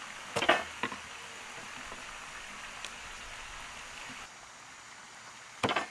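Brief rustling and handling noises of plastic wrap being torn off and meat being pushed onto a spit, over a steady hiss: two short ones about half a second and a second in, and a louder one near the end.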